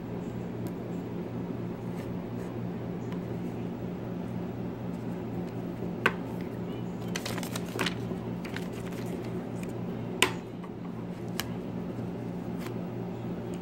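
Handling noise of a leather bifold wallet with a metal money clip on a wooden table: scattered light clicks and taps, with sharper knocks about six and ten seconds in, over a steady low hum.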